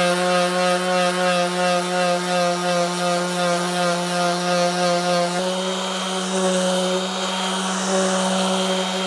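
Electric random orbital sander running steadily while sanding the face of a glued-up laminated wood stair tread. It is an even, pitched hum whose pitch shifts slightly about five seconds in.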